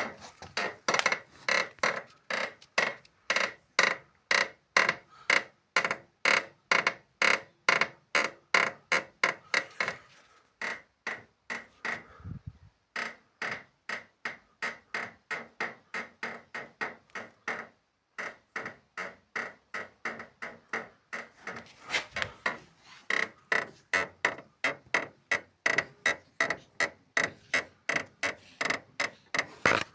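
Volkswagen Jetta's front left suspension creaking in a quick, even rhythm of about three squeaks a second. It breaks off for a couple of seconds about ten seconds in, then carries on the same way.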